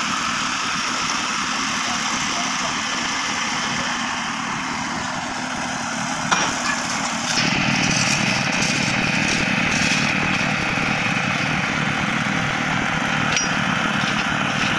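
Engine of heavy construction machinery running steadily at idle. About seven seconds in the sound grows fuller and a little louder, just after a single sharp click.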